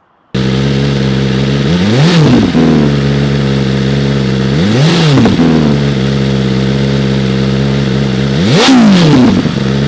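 2024 BMW S1000RR's inline-four engine idling through a Leo Vince LV10 titanium slip-on exhaust on stock headers and mid pipe. It is blipped three times, about three seconds apart. Each rev rises and drops quickly back to idle, and the last one goes highest.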